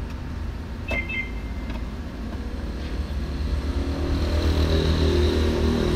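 Car engine idling with a low, steady rumble. A short electronic beep sounds about a second in, and music starts to come in, growing louder over the second half.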